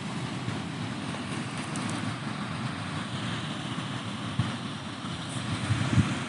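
Seafront ambience: a steady rush of Pacific surf with low wind rumble on the microphone, gusting harder near the end.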